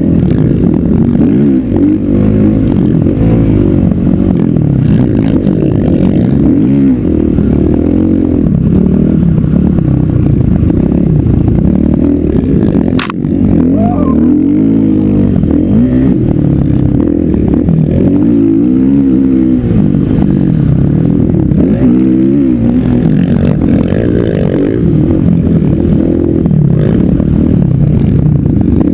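Dirt bike engine running hard across sand dunes, its pitch repeatedly rising and falling as the throttle is worked; a single sharp knock near the middle.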